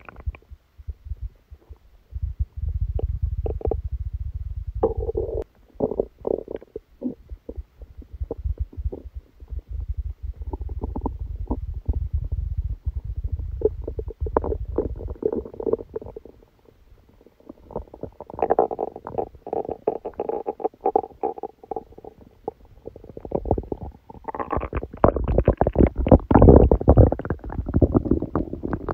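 Human stomach rumbling and gurgling during a stomachache after a big dinner: a low rumble, then irregular runs of bubbling gurgles, with a short lull past the middle and the loudest gurgling near the end.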